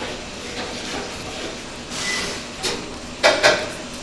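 Clear plastic sheet crinkling and rustling under gloved hands as a gimbap is rolled, with two short, louder crinkles a little after three seconds in.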